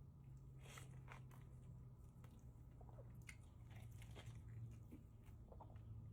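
Faint close-up eating sounds: a person biting and chewing food, with a scattering of soft crunches and mouth clicks over a low steady hum.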